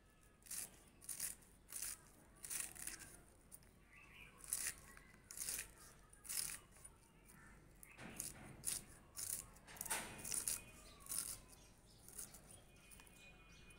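Cabbage being sliced on a boti, a curved blade held upright on a floor stand: short, crisp cutting strokes repeat irregularly, about one every half second to a second.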